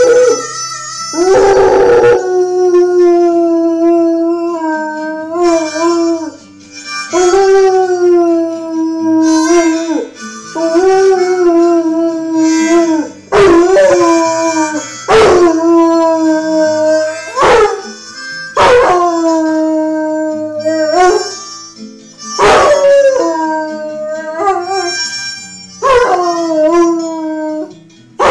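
Ridgeback dog howling along to music with a harmonica, in a string of long drawn-out howls about every two seconds, each held and then sliding off in pitch. Harmonica music is what sets this dog howling.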